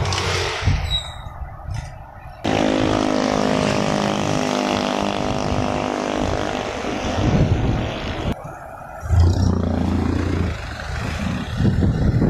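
Traffic noise from a moving vehicle: engine and road noise, with a steady engine drone through the middle stretch. The sound changes abruptly about two and a half seconds in and again about eight seconds in.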